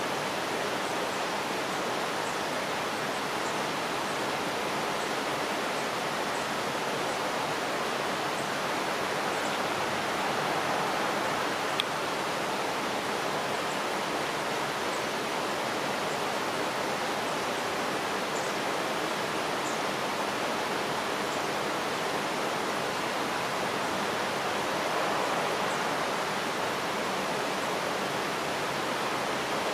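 Steady rushing noise of running water, even throughout. Faint, very high, short chirps are scattered through it.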